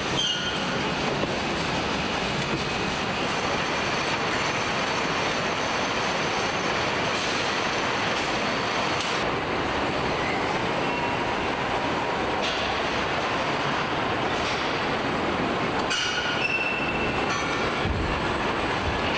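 Truck assembly-line factory noise: a steady, dense din of conveyor and line machinery. Brief high metallic squeals come about half a second in and again near the end, with a few scattered clanks.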